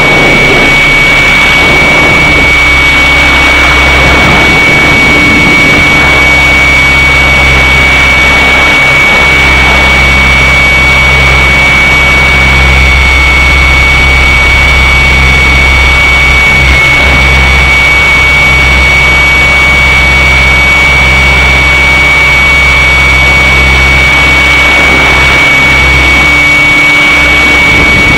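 Align T-Rex 600 radio-controlled helicopter in flight, heard from on board: its drivetrain and rotor run loudly and steadily with a constant high whine over a low hum.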